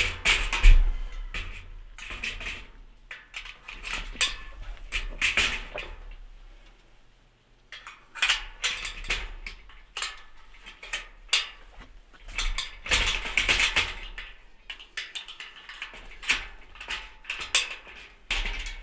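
Steel mesh side panels of a utility cart clanking and rattling against the cart's steel frame as they are set in place and their clips slid in: irregular metallic knocks and clatter, with a quieter stretch about seven seconds in.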